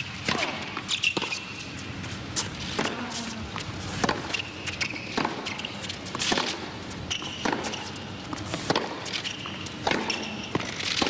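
Tennis rally: a serve, then racquet strings striking the ball back and forth about once a second, with short sneaker squeaks on the hard court between shots.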